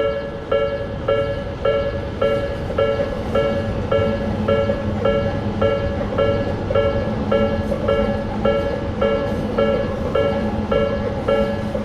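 Japanese level-crossing warning alarm ringing its steady 'kan-kan', just under two strikes a second, with a steady low hum joining about three seconds in.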